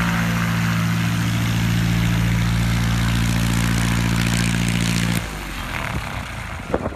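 Light biplane's propeller engine running steadily as the plane taxis on grass. About five seconds in the sound drops abruptly to a quieter level, with a short sharp click near the end.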